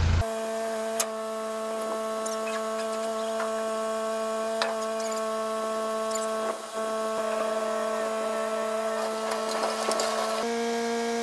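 Background music: a steady sustained drone of held tones, with a few faint clicks, shifting in pitch near the end.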